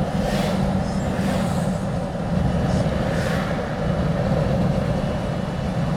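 Steady road and engine noise of a car driving, heard from inside the vehicle, with a few short whooshes.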